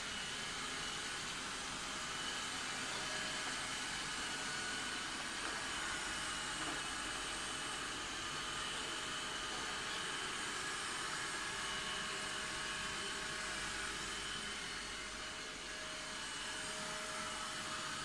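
Roborock S55 robot vacuum running steadily: the even hiss of its suction fan with a faint high whine over it.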